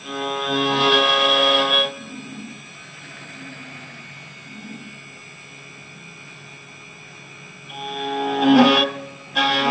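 Desktop CNC engraving machine's spindle running with a steady high whine as its end mill cuts a metal workpiece on the rotary axis. Twice the cut rings out as a loud, held, pitched squeal lasting about two seconds: first at the start, and again from near the end, with a short break just before the finish, as the tool bites into the metal.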